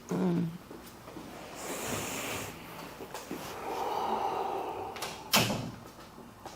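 Two long breaths out during an assisted stretch, with movement on the treatment table and a sharp thump a little after five seconds in.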